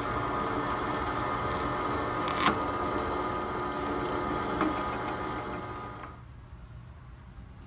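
Drill press motor running steadily as a twist bit drills through a thick clear acrylic sheet, with a few sharp clicks and crackles in the middle. The motor sound drops away about six seconds in, leaving a faint hum.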